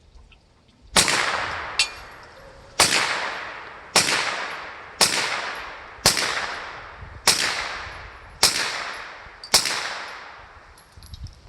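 Ruger PC9 9mm carbine fired eight times, roughly one shot a second, each shot followed by a long echo dying away.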